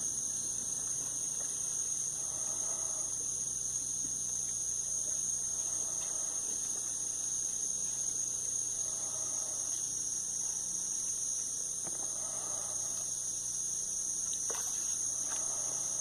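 Rainforest insect chorus: a steady, high-pitched drone that does not let up. Behind it, a faint call about a second long repeats roughly every three to three and a half seconds.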